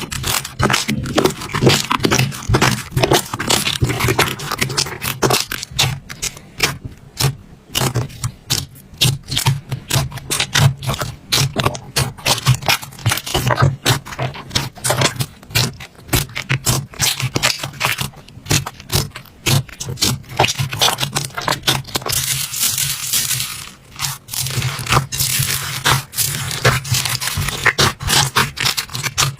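Slime being squeezed, poked and stretched by hand: a dense, irregular run of sticky clicks and crackling pops.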